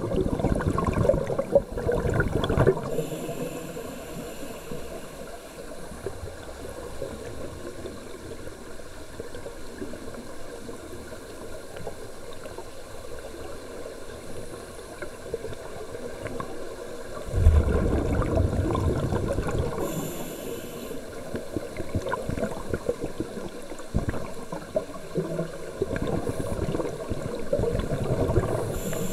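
Underwater scuba exhaust bubbles: bursts of bubbling from divers exhaling through their regulators, one starting suddenly a little past halfway, with a quieter stretch between bursts.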